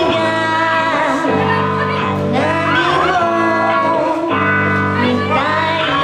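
Live pop-rock band playing, with a woman singing the opening lyrics in Japanese over held keyboard-like chords and bass.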